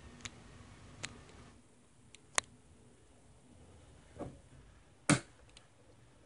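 About five separate sharp clicks and knocks, spaced a second or so apart, the loudest about five seconds in. A faint steady hum runs under the first second and a half, then stops.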